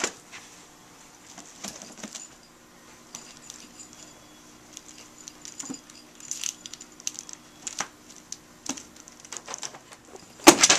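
Books being handled: faint, scattered clicks and paper rustles of books and turning pages, over a low steady hum, with a sharper click at the start. A loud, harsh noise begins just before the end.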